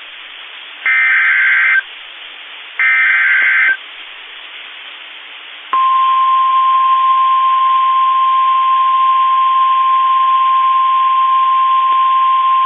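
NOAA Weather Radio emergency alert over a radio receiver, with hiss. First come two short screeching digital SAME header bursts, each about a second long. Then, a few seconds in, the steady single-pitch 1050 Hz warning alarm tone starts, which signals that a warning is about to be read.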